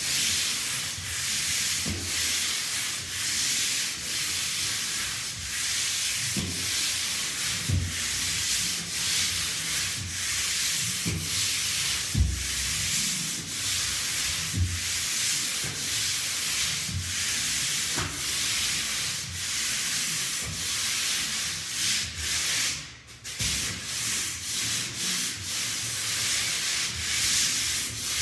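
Pole sander rubbing sandpaper over a textured drywall wall in steady, repeated up-and-down strokes, a dry scratching sound. A few dull knocks come in between the strokes, and there is a brief break late on.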